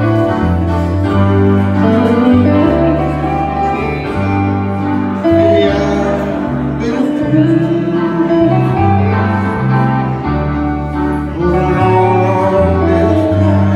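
Live country band playing, with acoustic and electric guitars and keyboard, and a man singing lead.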